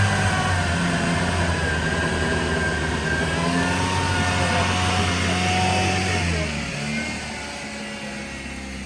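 A flood-soaked car's petrol engine running steadily just after it has finally fired following repeated cranking to clear water from it. About six and a half seconds in, the engine note drops lower and quieter.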